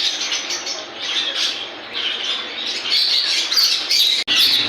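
Many caged parrots chattering, chirping and squawking over one another, with a very brief dropout near the end.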